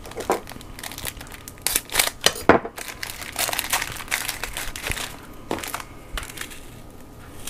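Crinkly plastic wrapper of a small pack of shortbread cookies being handled and torn open, followed by the cookies being broken and crumbled by hand. Irregular crackling, loudest about two and a half seconds in.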